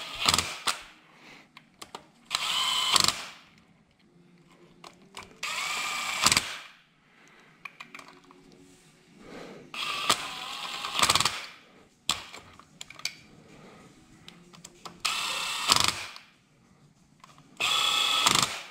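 Bosch cordless drill-driver running in short bursts, about six of them, each a second or so of high motor whine, as it runs in and snugs engine-case bolts one after another before they are torqued down. Small clicks of handling come between the bursts.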